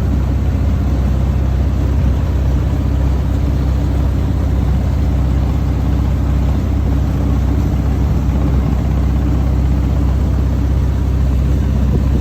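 Boat motor running steadily, a loud, even low drone.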